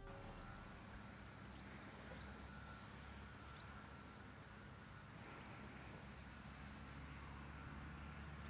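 Faint outdoor ambience: a low steady rumble with a few short, faint bird chirps.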